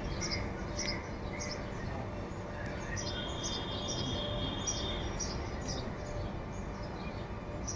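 Birds chirping, short high chirps repeating two or three times a second, with one held high note for about two seconds near the middle, over a steady background hiss.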